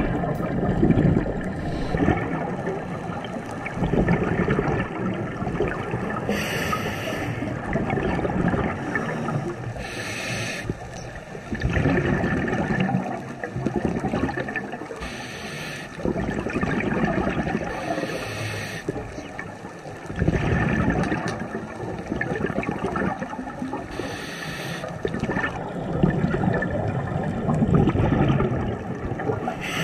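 Scuba diver's breathing on a regulator, heard underwater: a short hiss on each inhale, every few seconds, alternating with rumbling, gurgling exhaled bubbles.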